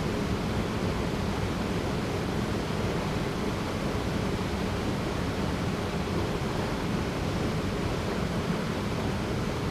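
Small waterfall pouring into a rocky pool: a steady, even rush of falling and flowing water.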